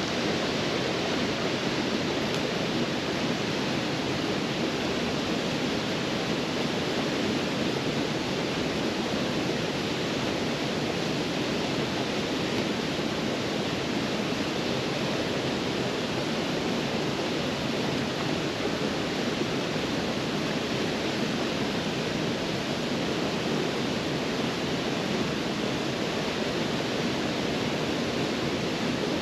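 Creek waterfall: a steady, unbroken rush of falling water.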